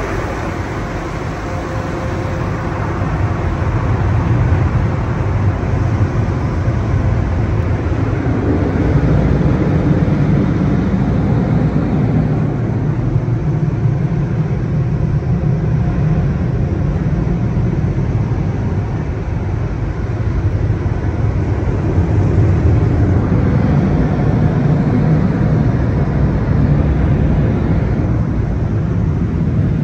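Car wash tunnel's overhead blower dryers running, heard from inside the car: a loud, steady rush of air that swells over the first few seconds and then holds.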